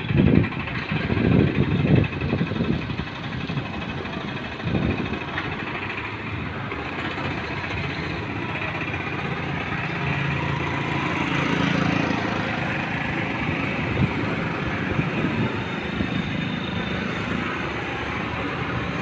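Street traffic noise with a motor scooter's engine coming closer and passing, loudest about ten to twelve seconds in. A few low thumps in the first two seconds.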